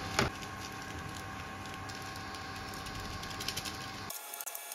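Instant noodles sizzling in a non-stick kadai on a cooktop: a steady hiss with scattered faint crackles over a thin steady hum, with a short knock right at the start. About four seconds in, the sound cuts to quieter, sparser crackling.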